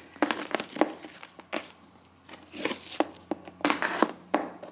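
Packaging of a gift box being opened and handled: irregular bursts of crinkling and rustling with a few light clicks and knocks.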